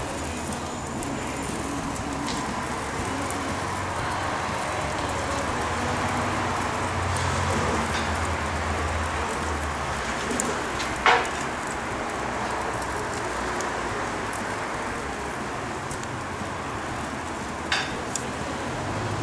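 Wood fire burning in a wood-fired pizza oven: a steady hiss with a few sharp crackles from the logs, the loudest about eleven seconds in.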